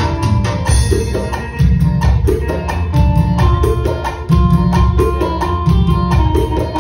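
Live band playing the instrumental interlude of a Sinhala song: a keyboard melody over a steady drum and percussion rhythm, with no singing.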